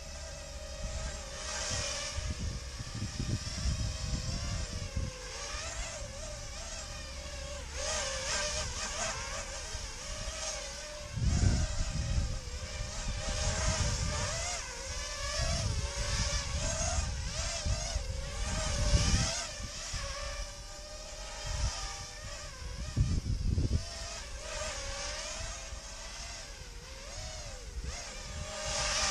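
Motors of an XHover Stingy drone whining steadily, the pitch wobbling up and down as the throttle changes. Several bursts of low rumble rise over the whine through the middle.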